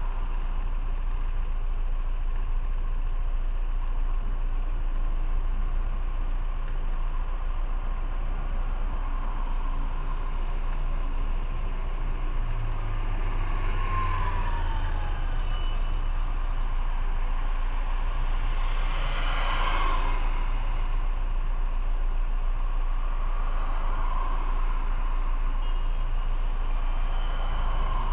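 Motorcycle engine idling with a steady low hum while stopped in city traffic. A short falling whine comes about halfway through, and a louder rushing swell of passing traffic follows a few seconds later.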